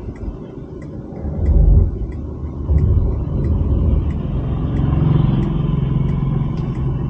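Mercedes-Benz C-Class cabin while the car parks itself: low rumble of the engine and tyres, swelling as the car moves off about a second and a half in and again just under three seconds in. Throughout, the turn indicator ticks regularly, about one and a half times a second.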